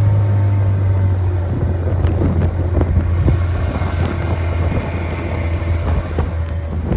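A fishing boat's motor running under way, its pitch sinking slightly in the first second or so and then steadying, with water splashing against the hull and wind on the microphone.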